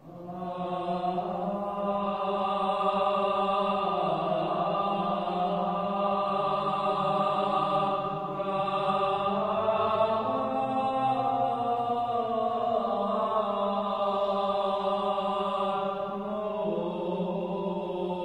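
A single male voice chanting an Armenian liturgical hymn in long, slowly moving sustained notes, starting right at the beginning.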